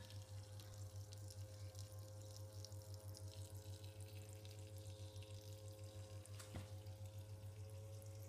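12-volt drip-irrigation pump running with a faint steady hum, while water trickles from a small drip tube into the soil. A single click about six and a half seconds in.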